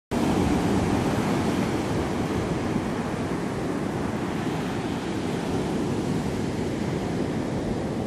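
Mediterranean surf breaking and washing up a sand-and-pebble beach, a steady rush of waves, a little louder in the first second.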